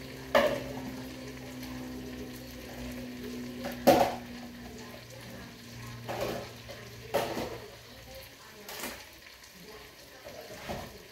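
Kitchen clatter: about six sharp knocks and clinks of dishes, utensils and a cabinet door being handled at the counter, the loudest about four seconds in, over a steady low hum that fades out about eight seconds in.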